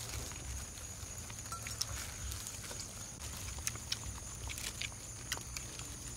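Eating sounds: scattered small clicks and smacks from biting and chewing corn on the cob, over a steady high-pitched drone of insects.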